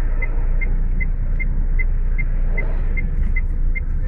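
Steady low rumble of a car idling with traffic passing, heard inside the car's cabin, with the indicator flasher ticking evenly about two and a half times a second.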